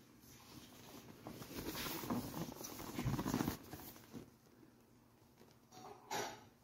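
Hands turning a paperboard product box, fingers rubbing and scraping along the card. The rustling is loudest around the middle, and there is one short, sharp scrape near the end.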